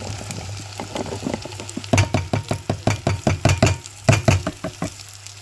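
Kitchen knife chopping quickly on a cutting board: a rapid run of sharp knocks, about five a second, pausing briefly and then a few more, over a steady low hum.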